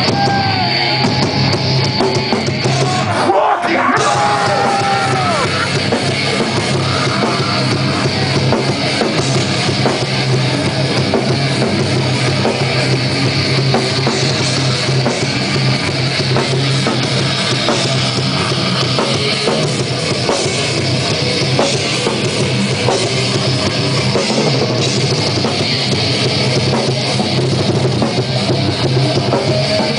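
Heavy rock band playing live and loud, a full drum kit driving under the guitars, with a brief break about three and a half seconds in.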